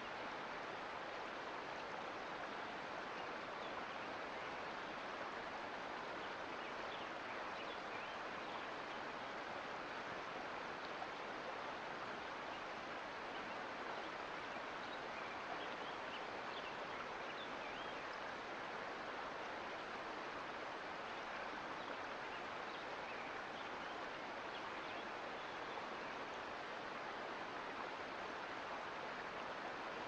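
Mountain creek flowing, a steady rush of water with faint small splashes.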